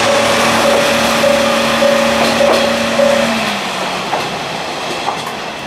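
Kanto Railway Joso Line diesel railcar running past close by: a steady engine hum over wheel and rail noise, with a few clicks as the wheels cross rail joints. The hum drops away about three and a half seconds in and the sound fades.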